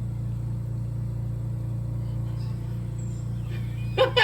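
A steady low hum, like a motor or appliance running, that holds even throughout; voices break in near the end.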